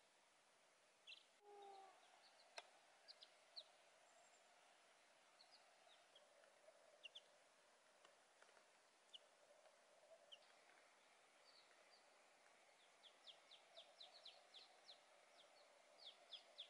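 Faint peeping of young chicks: scattered short, high cheeps that come in a quicker run near the end, with one brief lower call about a second and a half in.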